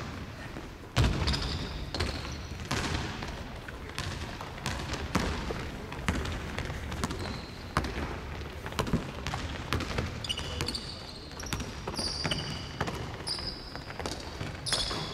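Basketball bouncing on a hardwood gym floor during play, a string of sharp thuds mixed with players' running footsteps. A few short, high sneaker squeaks come near the end.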